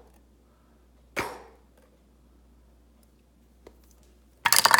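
A single sharp slap or knock about a second in that dies away quickly, a faint click later, then a dense burst of jingling clatter near the end.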